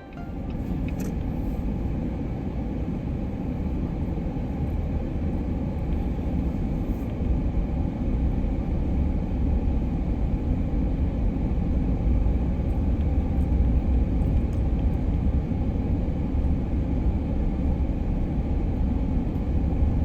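Steady low rumble of a car driving: road and engine noise that holds at an even level, with no speech over it.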